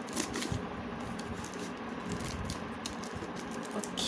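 Scissors cutting along the taped edge of a plastic courier mailer: a string of short, irregular snips.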